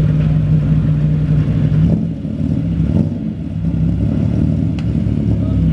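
TVR sports car engine idling steadily through its newly fitted exhaust back box, dipping slightly in level for a moment about two seconds in.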